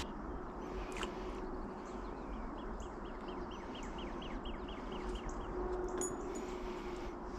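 A bird's trill of about a dozen quick, falling chirps, starting about two and a half seconds in and lasting under three seconds, over steady outdoor background noise with a faint low hum.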